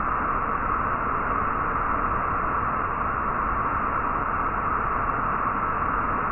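Waterfall rushing steadily: an even hiss with no breaks or changes.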